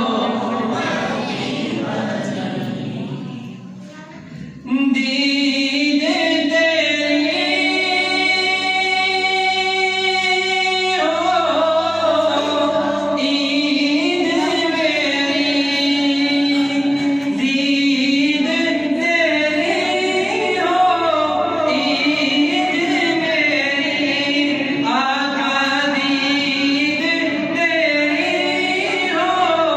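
A man's solo voice chanting an Urdu naat, an Islamic devotional poem, with no instruments and with long drawn-out notes. The voice drops away about three seconds in and comes back strongly at about five seconds.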